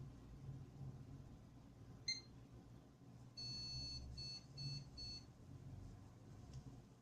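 PC motherboard POST beeps: one short high beep, then about a second later one longer beep followed by three short ones. This is a startup error beep code given when the system shows no display signal.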